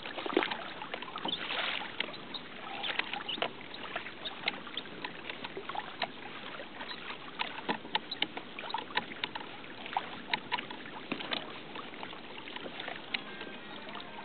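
Water lapping against a plastic kayak's hull, with frequent irregular sharp clicks and knocks, a few each second.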